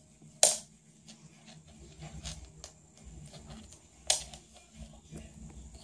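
Clicks and taps of a cat playing with a toy mouse on a hardwood floor: two sharp clicks, about half a second in and about four seconds in, with softer ticks between.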